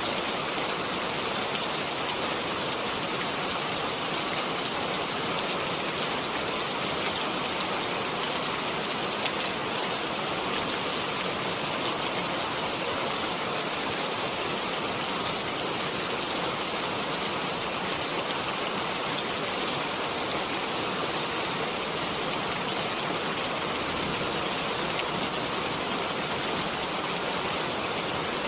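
Steady rain falling, an even hiss of many fine drops with no changes in strength.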